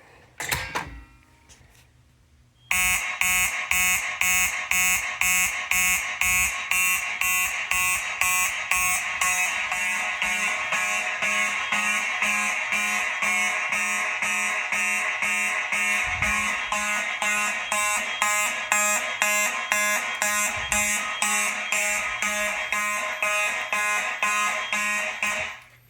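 Fire alarm notification appliances sounding in alarm with an even pulsing, about two pulses a second, set off by a test activation of a smoke detector. The alarm starts a few seconds in and cuts off suddenly near the end.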